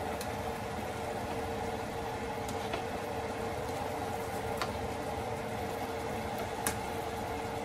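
Plastic slotted spatula stirring a wet ground-pork and tomato-sauce mixture in a nonstick skillet, giving a few light clicks against the pan, over a steady hum.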